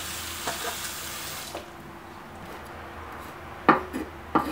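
Kitchen faucet running water onto celery stalks in a stainless steel colander, stopping abruptly about a second and a half in. Near the end, two sharp knocks of a chef's knife chopping celery on a wooden cutting board.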